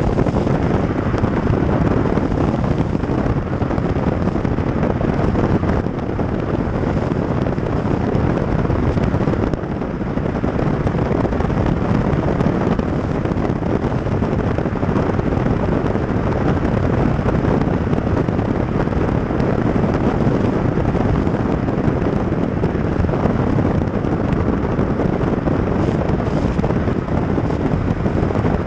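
Steady wind noise buffeting a camera mounted on the outside of a moving car, mixed with the hiss of tyres on a wet road.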